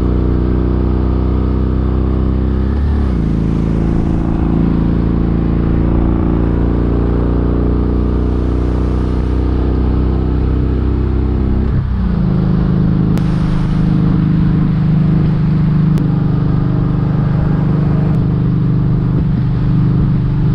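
Kawasaki Vulcan 1700 Vaquero's V-twin engine running under way, heard from on the moving motorcycle. Its note drops and settles at a new pitch twice, about three and twelve seconds in.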